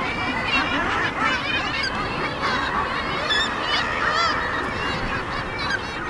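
Seabird colony calling: many birds calling over one another without pause, with short, wavering, high-pitched calls standing out above the din.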